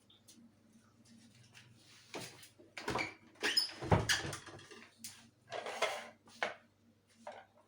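Irregular handling noises, rustling with two louder knocks about three and four seconds in, over a faint steady hum.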